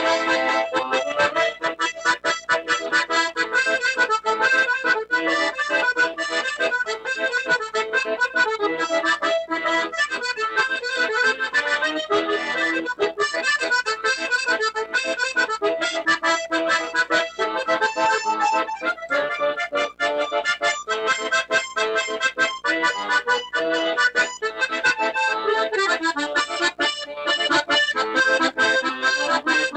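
Accordion playing a lively traditional tune, with quick runs of notes throughout.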